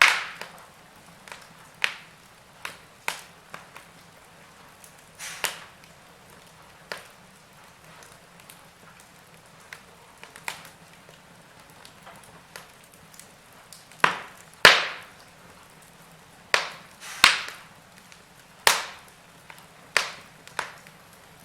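Wood fire crackling in a fireplace: irregular sharp pops and snaps of burning wood over a faint low hiss. The loudest pops come in a cluster more than halfway through.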